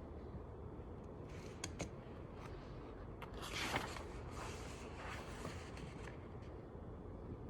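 Quiet library ambience: a steady low room hum with small handling noises, two sharp clicks about a second and a half in and a brief rustle about three and a half seconds in, followed by a few fainter rustles.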